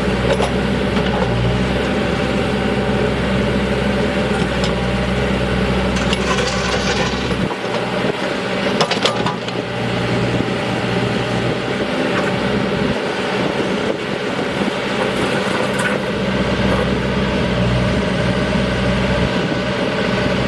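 Diesel engine of a 2011 Case 580N loader backhoe running steadily, with a few clicks and knocks about six to nine seconds in.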